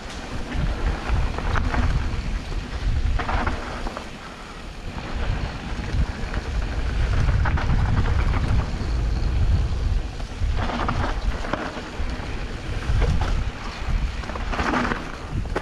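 Wind buffeting an action camera's microphone during a fast mountain-bike descent, with mountain-bike tyres rolling over a dirt trail. Several short scraping bursts from the tyres on the dirt come a few seconds in and again in the second half.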